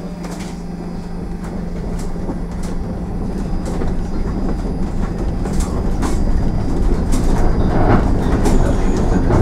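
Cabin noise of a SOR EBN 9.5 electric bus moving off and gathering speed: a rumble of tyres and running gear that grows steadily louder, with scattered clicks and rattles from the interior fittings.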